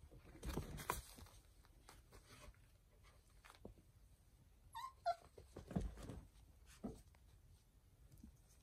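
Young sighthound puppies making faint little yips and whimpers. The sounds come a few at a time, with a short falling squeal about five seconds in.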